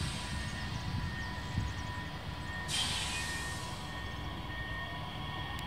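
Bombardier Talent 2 electric multiple unit rolling slowly into the platform: a low rumble with thin steady electric whine tones, and a brief hiss about three seconds in.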